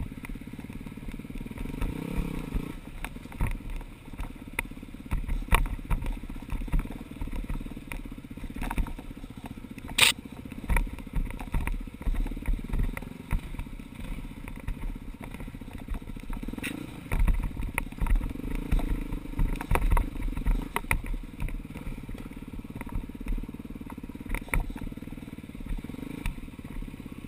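Four-stroke dirt bike engine from the bike's own camera, running at low revs along a rocky trail, the throttle opening and easing off. Frequent clatter and knocks from the bike over the rocks, with one sharp, loud crack about ten seconds in.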